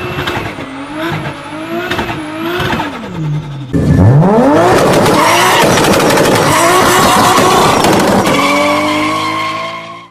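Turbocharged car engines revving in two clips: first an engine rising and falling in revs with a thin high whistle above it, then a much louder engine revving sharply up and holding high with rapid crackling, easing to a steadier tone near the end.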